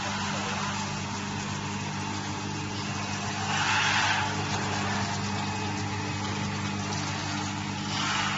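Rotary turntable bottle washing machine running: a steady electric motor hum under an even hiss, which swells briefly about halfway through.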